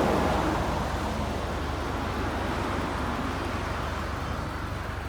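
A car running or driving, with steady engine and road noise that slowly eases off.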